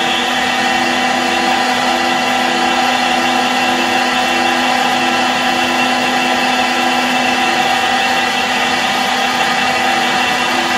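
Colchester Bantam lathe taking a cut in steel with a carbide tool, running steadily with a humming tone that pulses about one and a half times a second. This is the unhealthy-sounding cutting noise that comes and goes, which the machinist is trying to cure by adjusting the feed.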